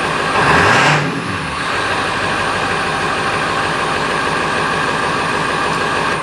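Ford 7.3 L Powerstroke V8 turbo-diesel idling steadily after an injector-harness and valve-cover-gasket repair, briefly louder just under a second in. It cuts off at the very end as it is shut down.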